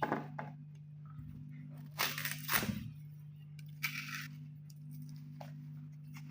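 Knife cutting through plantain, a few separate crunching cuts and knocks with a louder cluster about two seconds in.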